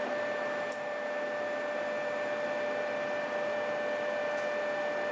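Steady background hiss with a constant thin whine running through it, and two faint light ticks, about a second in and near the end.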